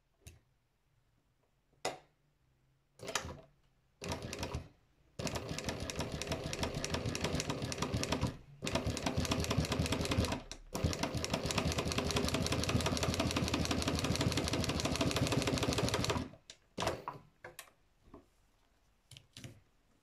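Embroidery machine stitching: a few short bursts of stitches, then a long, rapid run of about ten seconds broken by two brief stops, and a few more short bursts near the end.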